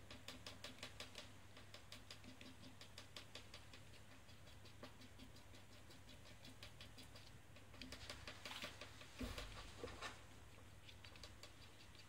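Faint, quick light ticking of a thin tool scraping and tapping against a small plastic mould, about five ticks a second at first, then more scattered. There is one dull thump about nine seconds in.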